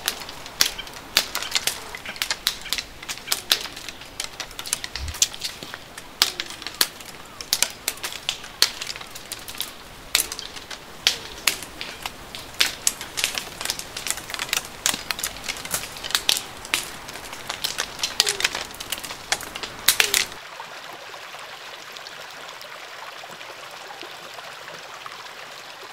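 Wisteria seed pods bursting open with sharp, loud pops, several a second at irregular intervals. The pops stop suddenly about twenty seconds in, leaving the steady rush of a stream.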